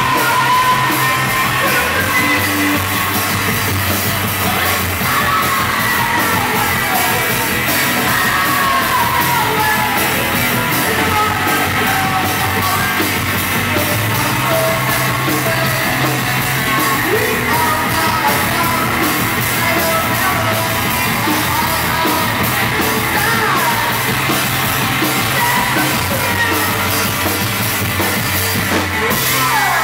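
Live rock band playing loud: a woman shouting and singing into a microphone over electric bass and drums.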